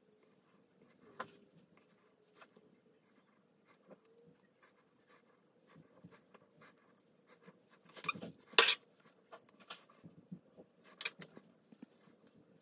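Makeup brush buffing liquid foundation onto the face, a faint scratchy brushing, with a few sharp clicks about eight seconds in and again about eleven seconds in, the loudest near eight and a half seconds.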